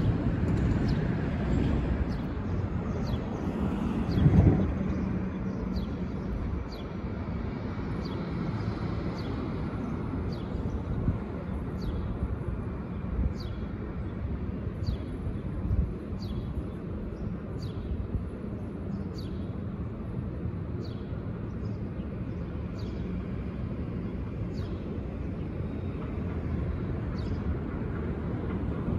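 Distant subway train running on open track toward the listener, a low steady rumble, with short high clicks or chirps recurring about once a second.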